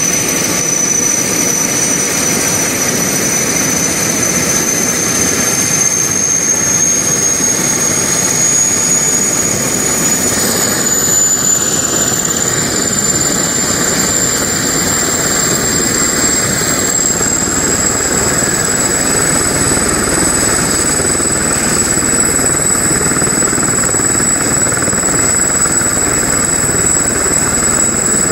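Sud Aviation Gazelle helicopter running on the ground during start-up: its Turboméca Astazou turboshaft gives a loud, steady rush with a high whine that climbs slowly in pitch as the engine and rotor spool up.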